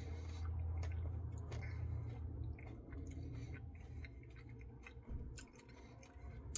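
Close-up mouth chewing a spoonful of Reese's Pieces cookie dough Blizzard, with many small wet clicks and smacks, over a low steady hum.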